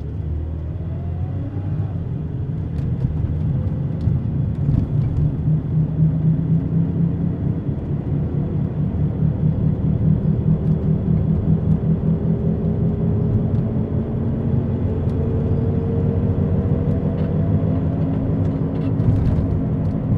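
Car driving with a bad wheel bearing: a low, rapidly pulsing whomping drone under the road noise, with tones slowly rising in pitch as the car gathers speed.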